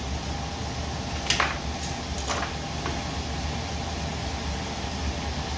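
Onion and garlic sautéing in a frying pan on an electric stove: a steady sizzle over a low hum, with a few sharp crackles about one and a half to two and a half seconds in.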